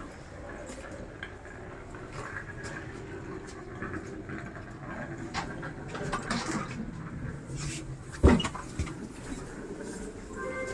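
Inside a long-distance passenger train carriage: a steady low rumble with scattered light clicks and rattles, and one sharp, loud knock about eight seconds in.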